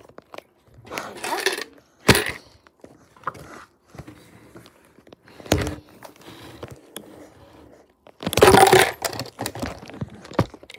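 Handling noise: a few sharp knocks and clicks, then a loud scraping, rustling clatter about eight seconds in.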